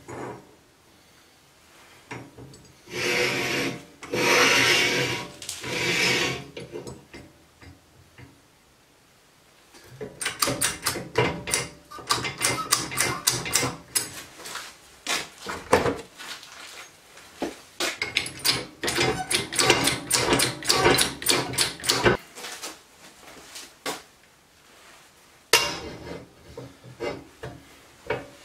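Metal parts of a homemade hydraulic press being handled and adjusted by hand: a few seconds of scraping and rubbing, then a long run of quick, irregular clicks and knocks of metal on metal.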